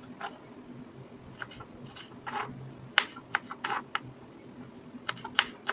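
Kitchen knife cutting peeled shallots on a wooden cutting board: irregular sharp taps with a few short rasps, over a low steady hum.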